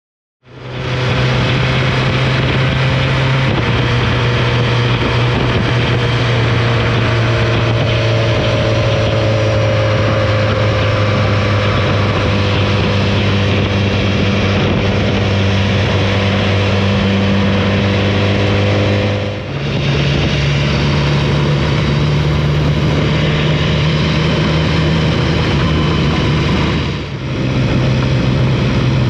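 Motorcycle engine running at a steady road speed under constant wind rush. The engine note dips briefly twice, about two-thirds through and near the end, and changes pitch after each dip.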